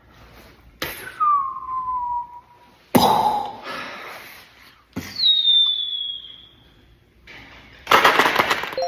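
A launch sound effect: two whistling tones that slide downward in pitch, about a second in and about five seconds in, and short noisy bursts about three seconds in and near the end.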